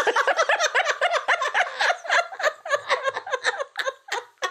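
Women laughing together, the laughter dying away near the end.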